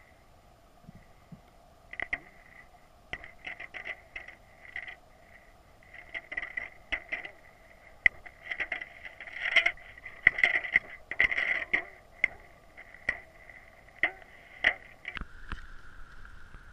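Underwater sound of a stream heard through a GoPro's waterproof housing: a steady hum with irregular clicks and scrapes, busiest in the middle. About fifteen seconds in, the camera leaves the water and the sound turns to a steadier noise.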